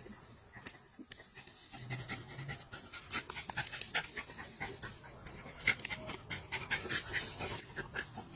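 A dog panting in a run of quick breaths.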